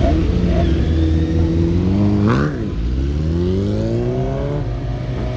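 Sport motorcycles pulling away and riding past, their engines revving. One engine rises sharply and drops back about two seconds in, then another climbs steadily in pitch before settling to an even tone near the end.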